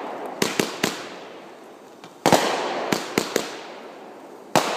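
Consumer fireworks going off in a string of sharp bangs, each trailing off: three quick bangs, a loud bang about two seconds in followed by three more in quick succession, and another loud bang near the end.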